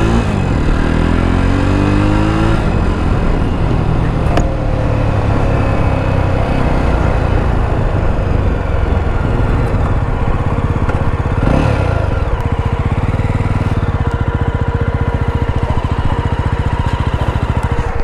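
Motorcycle engine running while riding, its pitch shifting up and down in the first couple of seconds, then settling into a steady, even beat as the bike slows and pulls off the road.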